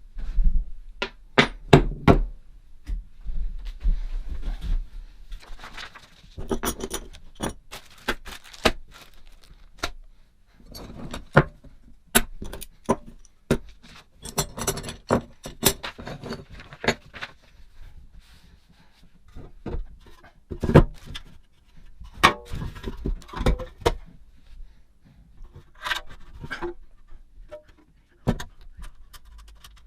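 Hand tools clinking, knocking and scraping against metal as they are handled and set into a metal tool box: many irregular sharp clinks with short rattles between them.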